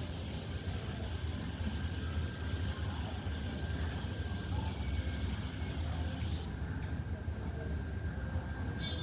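An insect chirping in short, evenly spaced pulses at one steady high pitch, about twice a second, over a steady low rumble and a hiss; the hiss drops away about six seconds in.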